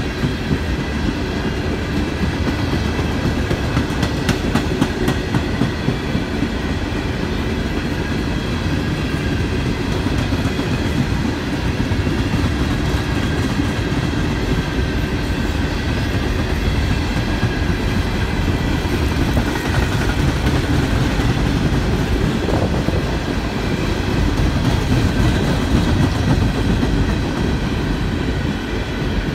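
Freight train's coal hopper cars rolling past close by: a steady rumble of steel wheels on rail with clicks at the rail joints and a faint high ringing above it.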